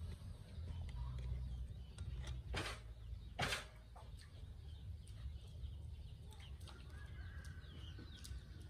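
Chickens clucking faintly in the background over a low rumble, with two sharp knocks about two and a half and three and a half seconds in.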